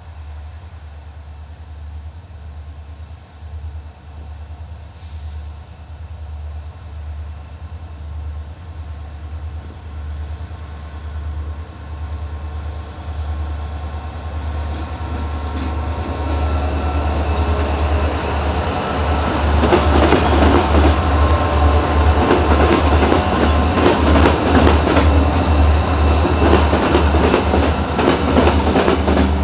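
Freight train of diesel locomotives with a long string of loaded ore hopper cars approaching and passing close by, its rumble building steadily. From about 20 s in the wheels pound and clatter in rapid repeated bangs as the cars cross the rail diamond.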